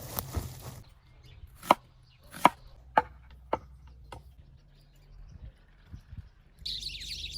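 Chopping: five sharp strikes about half a second to a second apart, then a few softer knocks. Birds start chirping near the end.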